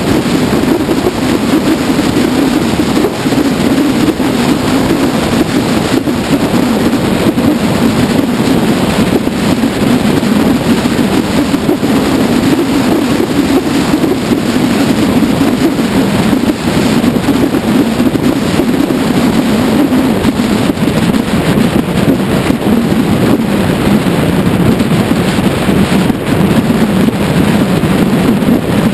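Steady wind roar buffeting the microphone of a camera on a Kymco People S 250 scooter riding at speed, with road noise underneath.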